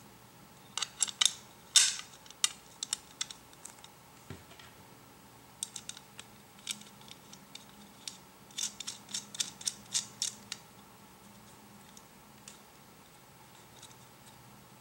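Hands handling and fitting small aluminium bar pieces: a string of light, sharp clicks and ticks, bunched in two spells, about a second in and again from about six to ten seconds in.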